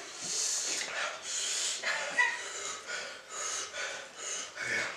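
Hard, hissing breaths drawn in and out through the mouth, about six or seven in a row, with faint voice sounds between them: panting against the burn of extremely spicy 2x fire noodles.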